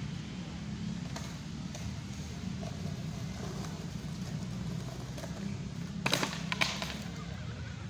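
Two sharp clacks of a skateboard hitting concrete, about half a second apart near the end, over a steady low hum, with a few fainter clicks of wheels and deck earlier on.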